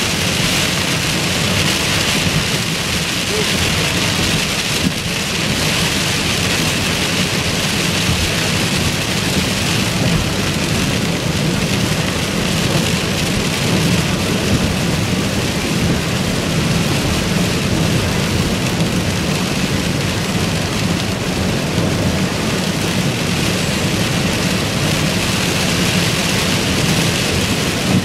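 Heavy rain pelting a car's roof and windshield, heard from inside the moving car: a loud, steady hiss over a low, even rumble from the tyres and road.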